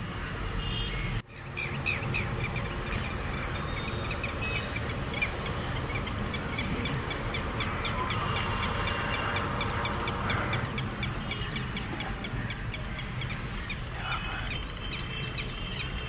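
A flock of waterbirds calling: many short, repeated calls overlapping in a busy chorus over a steady low rumble, with a sudden brief drop in the sound about a second in.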